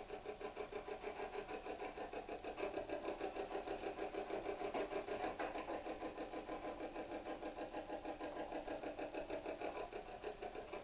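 Spirit box sweeping through radio stations: rapid, evenly chopped bursts of radio static and fragments, several a second, running without a break.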